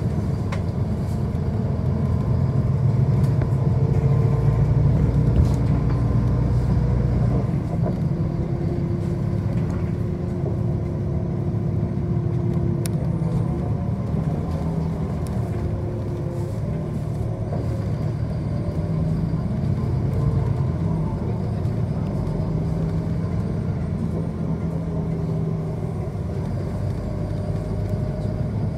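City bus driving, heard from inside the passenger cabin: steady engine and road noise, with the engine note shifting in pitch several times as the bus changes speed.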